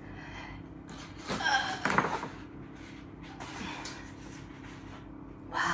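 Paper shopping bag rustling as a cardboard gift box is pulled out and handled, loudest in a cluster of crinkles and knocks a second or two in, with a sharp knock about two seconds in.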